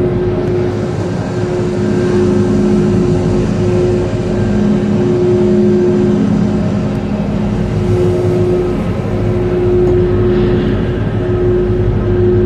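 Maokong Gondola cabin being carried through the station by its conveyor machinery, heard from inside the cabin: a loud, steady mechanical drone with a hum that fades in and out every second or two.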